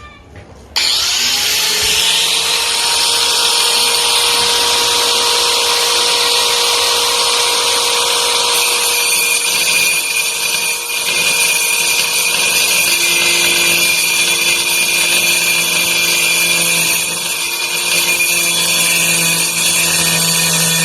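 Titanium AG710 710-watt angle grinder switched on about a second in, whining up to speed and then running steadily at full speed.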